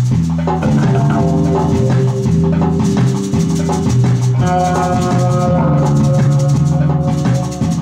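Instrumental music with a steady beat and a repeating bass line; held higher notes come in about halfway through.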